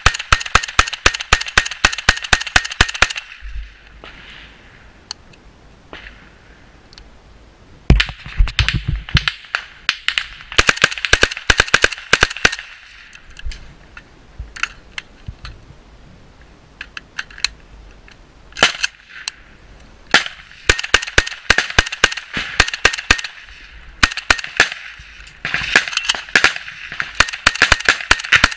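Rifle fire at close range: rapid strings of shots, several a second, each string lasting a few seconds, about five strings with quieter gaps between them.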